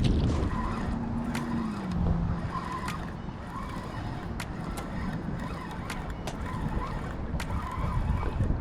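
Wind buffeting the microphone with a low rumble. An engine's hum drops in pitch about a second in, and a few light clicks come through.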